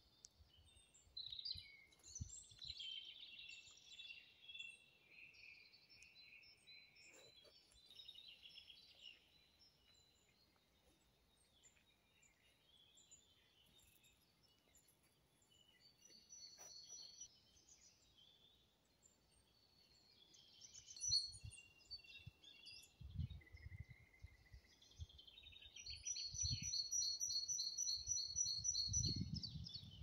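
Several small songbirds singing in woodland: assorted chirps, warbles and trills, with a fast, evenly repeated trill near the end. Low rumbling bursts come in during the last several seconds.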